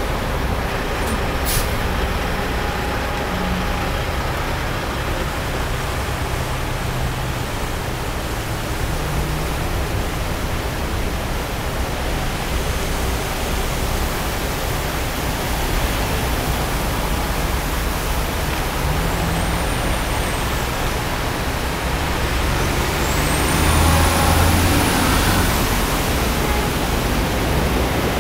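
Traffic driving through floodwater on a freeway: a steady rush of engine, tyre and splashing-water noise that swells louder a little past the middle. Two brief high squeals come in the second half.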